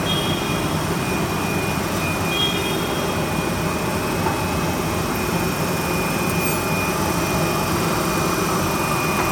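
Steady factory machinery noise from a rigid box-making machine and the shop around it: an even hum with a thin high whine over it.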